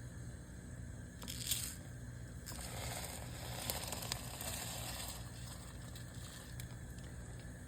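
Washed rice being tipped from its container into a pot of milk and water: a short rustling burst about a second in, then a longer crunchy, rustling pour of about two and a half seconds.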